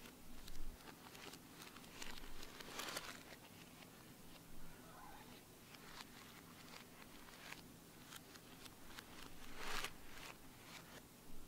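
Faint crinkling and rustling of a plastic seasoning packet being handled and torn, played in reverse. Scattered crackles throughout, with two louder rustles about a quarter of the way in and near the end; the second swells up and then stops abruptly.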